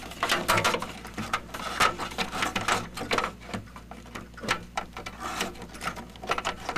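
An IDE ribbon cable and its plastic connector being handled and pushed onto a motherboard header: irregular rustling, rubbing and small clicks. A low steady hum runs underneath.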